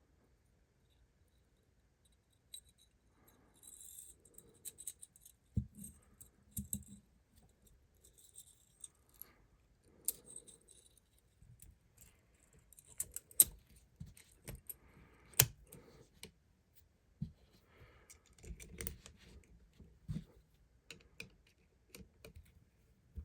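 Small metal parts of a Heritage .22 LR being handled during disassembly: scattered light clicks and metallic clinks, with a few sharper, louder clicks past the middle.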